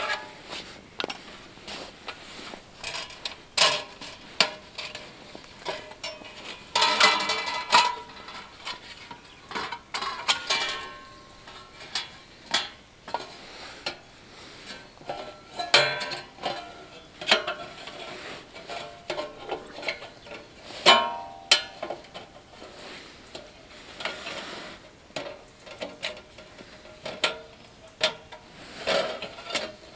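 Thin steel panels of a flat-pack folding camp stove being unfolded and slotted together: an irregular string of light metallic clicks and knocks, with a few ringing clanks.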